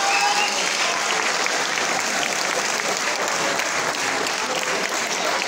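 Audience applauding steadily, many people clapping at once, with a few scattered voices in the crowd.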